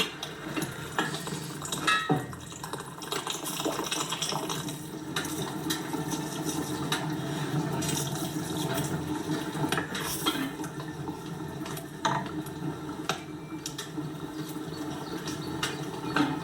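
Kitchen work: steady running or splashing water with dishes and utensils knocking and clinking now and then.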